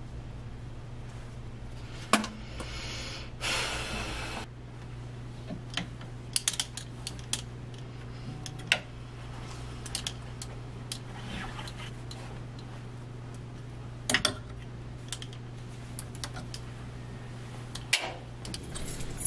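Plastic clothes hangers clicking and scraping on a closet rod as clothes are pushed along, a scattering of light clicks over a steady low hum. A short burst of hiss comes about three and a half seconds in.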